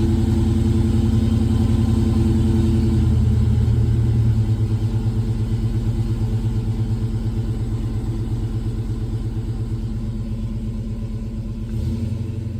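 Ford 5.0 V8 of a 1994–95 Mustang running on the road, steady at first, then the throttle eases off about four seconds in and the engine note falls to a pulsing drone that slowly fades. This is a test drive after a new throttle position sensor, and the car seems to be driving pretty good.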